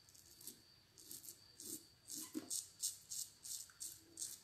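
A Razorine open-comb safety razor scraping across facial stubble in quick, short strokes, about three a second. These are faint touch-up passes around the mouth and chin on a near baby-smooth shave.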